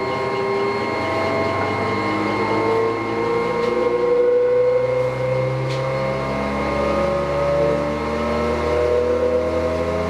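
Wadkin RM 26-inch planer's 7.5 hp three-phase motor, run from a rotary phase converter, slowly winding up to speed, its pitch rising steadily. This is a hard, slow start of about 27 seconds, from before capacitors were added to balance the converter's generated wild leg.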